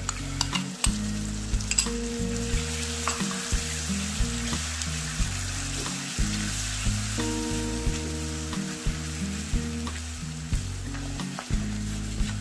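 Chicken frying in hot oil in a pan, with a steady sizzle and a few light clicks, over background music.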